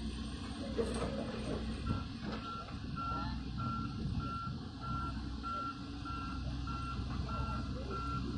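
Excavator's motion warning alarm beeping steadily about twice a second, starting about two seconds in, over the low running of heavy machinery engines.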